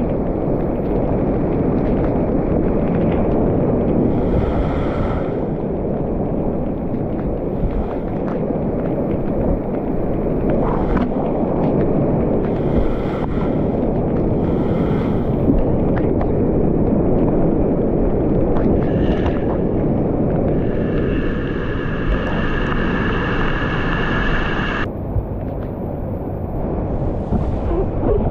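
Whitewater rapids rushing loudly and steadily around a kayak on a creek in high flow, close to the microphone.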